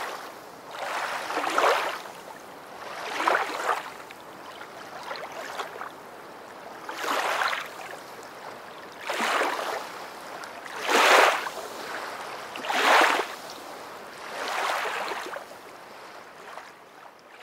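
Water washing in repeated swells, each rising and falling over about a second, roughly every two seconds.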